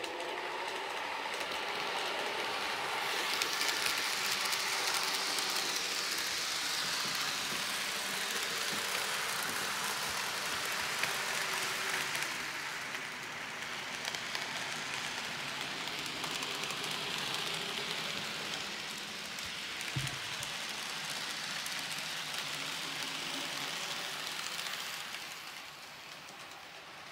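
N gauge model Class 43 HST measurement train running on the layout track: a steady rushing whir of wheels and motor that swells and eases as it passes, with a single click about twenty seconds in and a fade near the end.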